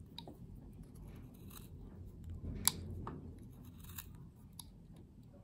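Small whittling knife making short slicing cuts in a wooden carving, shaping the nostril of a carved nose: quiet scraping with a few sharp clicks, the loudest about two and a half seconds in.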